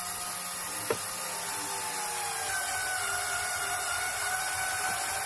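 Small cordless electric screwdriver running continuously as it drives a screw into a melamine-covered particle-board shelf, its motor whine dropping slightly in pitch, with a single click about a second in.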